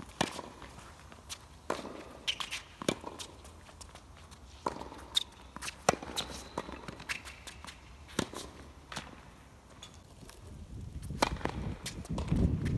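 Tennis ball struck by rackets and bouncing on a hard court during a baseline rally: sharp pops every second or so, with players' footsteps on the court. A low rumble builds near the end.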